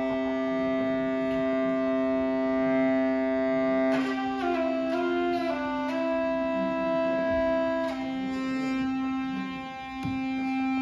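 Hurdy gurdy playing: an unbroken drone under a melody of long held notes that change pitch every second or two.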